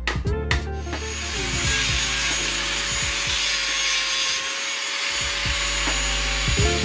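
Handheld angle grinder with its disc pressed against a length of timber, grinding and shaping the wood with a steady motor whine. It starts about a second in and stops just before the end.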